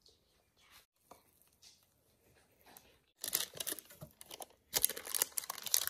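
Parchment paper lining a baking pan crinkling and rustling as dough rolls are set in and pushed into place, starting about three seconds in after a quiet stretch with a few faint taps.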